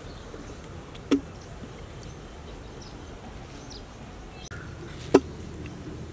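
Two short sharp clicks, about a second in and about five seconds in, over a steady low background hum.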